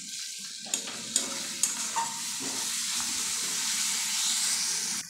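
Masala paste and fresh tomato pieces sizzling in hot oil in a metal karai while a steel spatula stirs and scrapes them, with a few knocks of the spatula against the pan in the first two seconds. This is the masala being fried down until the oil separates.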